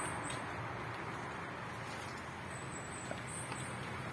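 Steady background noise of distant road traffic, with a few faint light ticks near the end.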